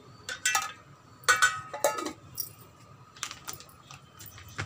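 Ice cubes tipped from a stainless steel bowl into a steel mixer-grinder jar of blanched spinach, clinking against the metal. There is a burst of sharp clinks in the first two seconds, then a few fainter ones.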